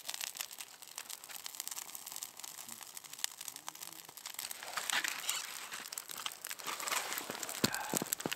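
Burning birch bark crackling as it is held into a pile of dry twigs, with rustling of the tinder being handled, getting louder about halfway through and again near the end as the pile catches.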